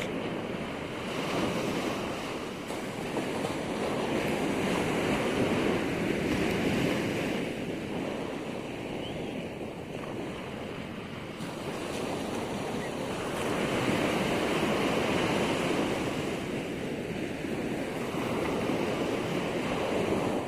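Ocean waves breaking and washing ashore at high tide, the surf swelling and easing in slow surges every few seconds, with some wind on the microphone.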